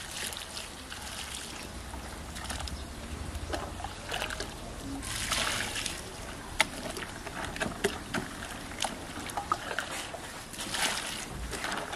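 Dye liquid poured from a metal jug into a plastic bucket over skeins of silk, splashing and trickling in several pours, the longest about halfway through, with sharp ticks in between.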